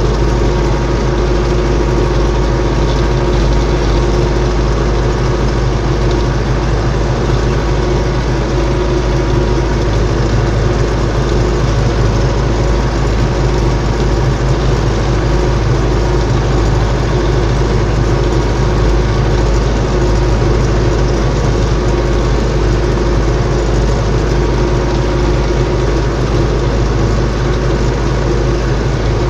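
Four-cylinder diesel engine of an MTZ-82 tractor running steadily under load, heard from inside the cab while it pulls a combination cultivator across a field. The drone holds an even pitch and level throughout, with no revving.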